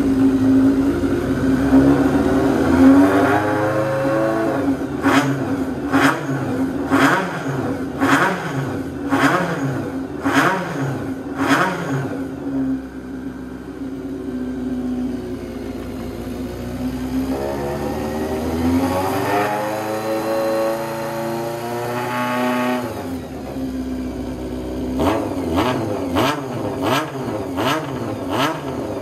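Kawasaki Zephyr 400χ air-cooled inline-four engine, breathing through a Pretty Racing full exhaust, idling and being revved. The revs rise once, then there is a string of quick throttle blips about once a second. After that comes a slower climb and fall, and more quick blips near the end.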